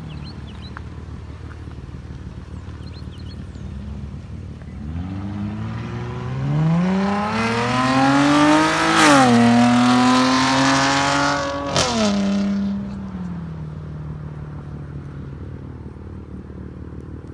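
Dodge Challenger exhaust with the mid muffler and rear resonator deleted, idling and then revved. The pitch climbs over about four seconds, dips and holds high for a few seconds, then drops back to idle, with a sharp crack at each drop.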